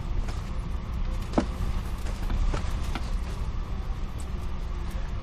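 Steady low rumble of an airliner cabin, with a few scattered light clicks and knocks.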